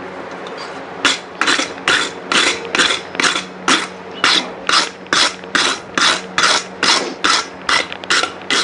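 Wire brush scrubbed back and forth over hot forged steel to knock off the forge scale, about two to three rasping strokes a second starting about a second in. A steady low hum runs underneath.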